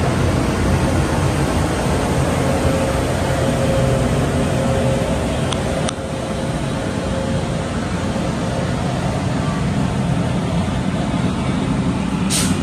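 Steady low rumble and hum of a train locomotive idling beside a station platform, easing off a little about halfway through. A short hiss near the end.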